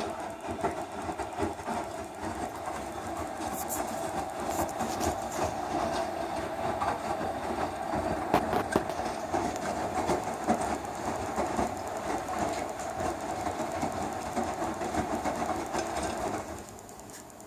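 Electrolux Eco Turbo TRW12 washing machine running with a steady rattling, clicking churn. It starts abruptly, runs for about sixteen seconds, then stops.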